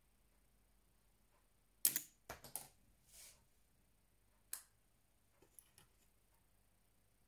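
Mini toothpick gun firing a toothpick into a wax candle: a sharp snap about two seconds in, followed closely by a few quicker clicks. A single sharp click comes about two and a half seconds later, with faint ticks near the end.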